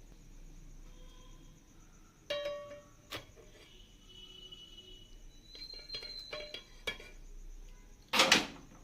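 Kitchen utensils clinking and ringing: a few scattered knocks of metal on a vessel, each leaving a short ring, with a louder clatter near the end.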